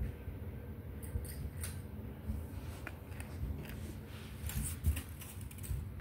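Scattered light clicks and rattles of small objects being handled, over a low rumble.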